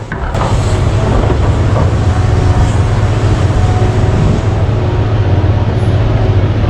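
Heavy diesel mining machinery running steadily with a loud, deep engine drone that cuts in just after the start.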